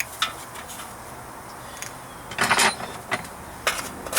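Sharp metallic clinks and knocks from hand tools and loose steel parts being handled, with a short clattering rattle about two and a half seconds in, over the steady low hum of the Ram's idling engine.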